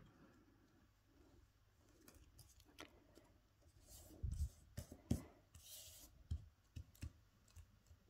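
Faint handling sounds of hands pressing and smoothing a thin foam sheet on a wooden tabletop: soft rubbing with scattered light taps and clicks, and a couple of soft thumps about four and five seconds in.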